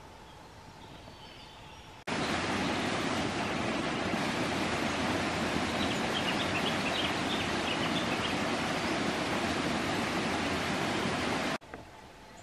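Quiet outdoor ambience, then a loud, even rushing noise that starts abruptly about two seconds in and cuts off just as abruptly near the end, with a few faint high chirps in the middle.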